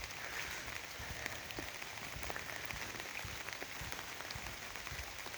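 Raindrops pattering on an umbrella overhead: a steady patter of many small irregular taps.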